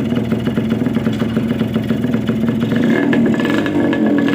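Yamaha RX 100's two-stroke single-cylinder engine running steadily, then revving up a little about three seconds in.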